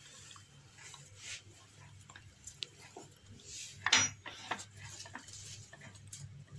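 Metal cutlery, a fork and kitchen knives, clicking and clinking against a serving dish and a wooden chopping board in scattered light knocks, with the loudest clatter about four seconds in.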